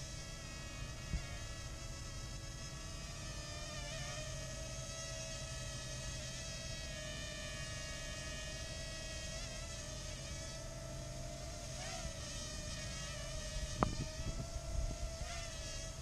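Parrot Mambo minidrone's small propellers running with a steady high-pitched whine, the pitch wavering a few times as the drone manoeuvres. A single sharp click about fourteen seconds in.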